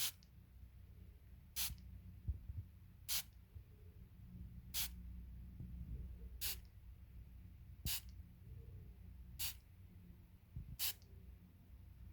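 Perfume bottle atomizer sprayed in short, sharp hissing puffs, eight in all at an even pace of about one every second and a half.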